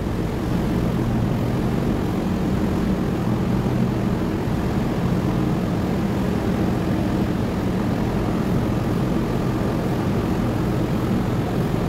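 Steady low drone of engines running inside a ferry's enclosed steel vehicle deck.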